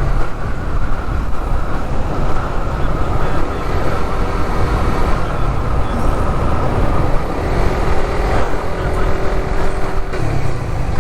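Motorcycle on the move: steady engine and road noise with a heavy low rumble. A faint steady hum joins for a couple of seconds near the end.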